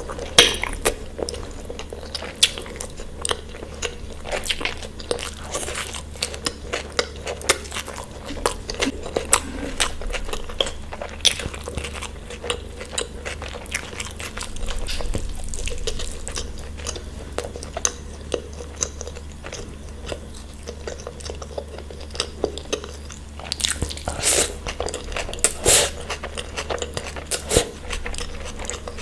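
Close-miked eating: crunchy bites and wet chewing with many irregular sharp mouth clicks, from a meal of spicy mutton liver, green chillies and raw salad, over a steady low hum.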